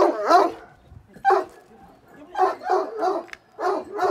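A dog barking over and over: short barks in runs of two or three, with short pauses between the runs.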